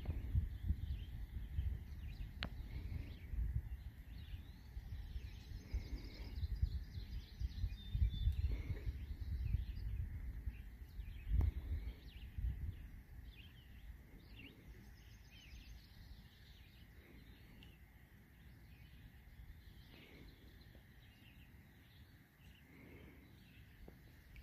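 Songbirds chirping and calling from the shoreline trees, many short high calls throughout. Under them a low, uneven rumble on the microphone that dies away about halfway through.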